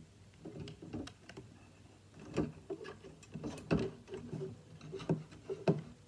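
Handling noise: several light plastic clicks and knocks with cable rustling, as a USB cable is plugged into a VEX V5 robot brain and the brain is handled.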